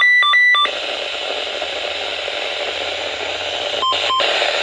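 Weather radio receiver hissing with static between broadcasts. It opens with a quick run of alternating high and low electronic beeps, and two short beeps sound near the end.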